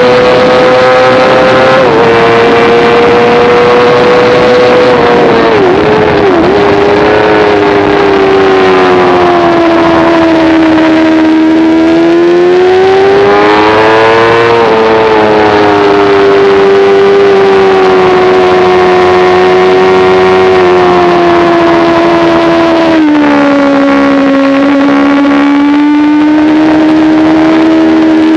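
Sport motorcycle engine running hard at high revs on a racetrack, its pitch sliding up and down with the throttle. There is a short drop about 2 s in, a couple of quick dips around 6 s, and a step down near 23 s, like gear changes.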